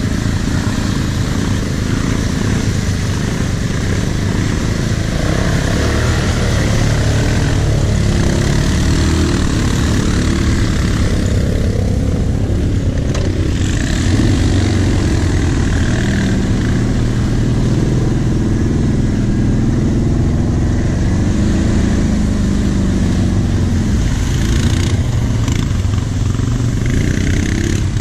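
Quad (ATV) engine running close up as the quad is ridden along a muddy trail, its engine speed rising and falling with the throttle.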